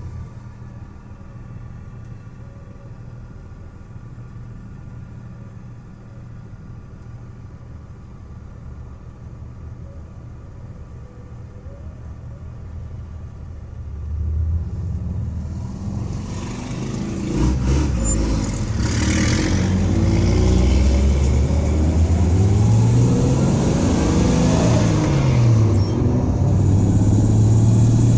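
1984 Dodge van engine running steadily at low revs, then from about halfway through accelerating hard. Its pitch climbs, falls once and climbs again, while road and wind noise grow. This is a wide-open-throttle run to check for a suspected misfire.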